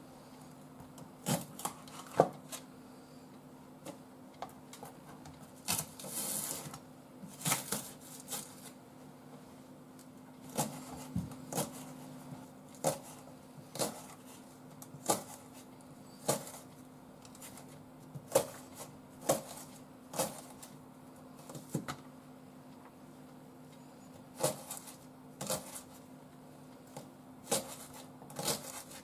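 Kitchen knife dicing a Japanese long onion (negi) on a cutting board: sharp knocks of the blade striking the board at irregular spacing, roughly one a second. A faint steady hum runs underneath.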